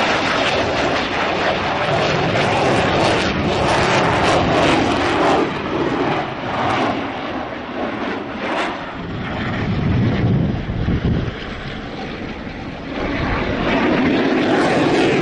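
Fighter jet engines roaring in low passes overhead, a dense, loud noise that eases off for a few seconds past the middle and builds again near the end.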